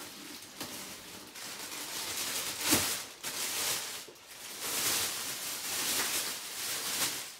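Clear plastic shipping bag crinkling and rustling in swells as it is pulled and handled around a drum, with one short thump about three seconds in.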